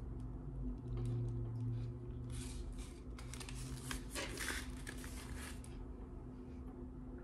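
Chewing a mouthful of burrito: wet mouth noises that come and go, busiest in the middle, over a steady low hum.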